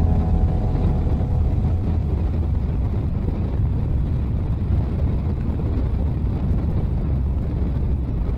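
Motorcycle cruising at steady highway speed, heard from the bike itself: a steady, low engine and wind noise with no changes in speed.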